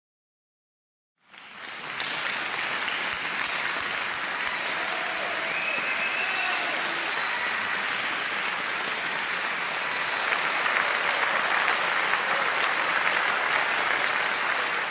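Applause, fading in after about a second of silence and then going on steadily at an even level.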